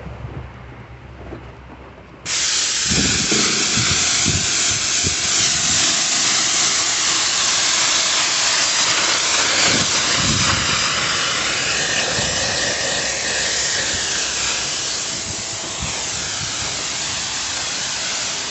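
Water sprayer nozzle spraying plants in a steady loud hiss that starts suddenly about two seconds in and holds until the end, with a few soft low knocks under it.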